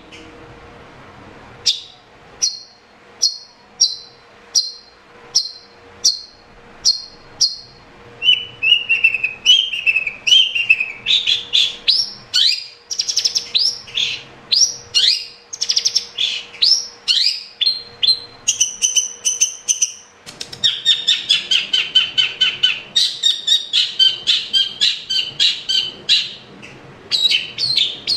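Long-tailed shrike singing. About two seconds in comes a run of sharp, evenly repeated calls, roughly one every 0.7 s, then a fast, varied chattering song of rising and falling high notes that grows denser and almost continuous over the second half.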